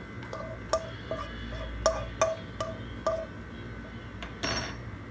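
A cooking pan tapped repeatedly to knock roasted whole spices out onto a plate: about eight clinks, roughly three a second, each with a short ring, then a brief rushing rattle near the end as the spices slide out.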